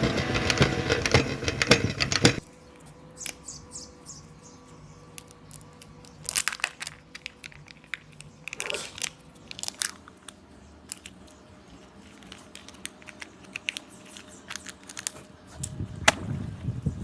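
Music that cuts off about two seconds in, followed by faint, scattered crinkling, tearing and clicking: close handling of packaging or small objects.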